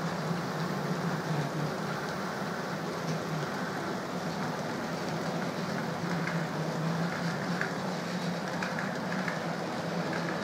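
OO gauge model freight trains running on the layout: a steady electric motor hum with the wheels rattling along the track, and small clicks in the second half.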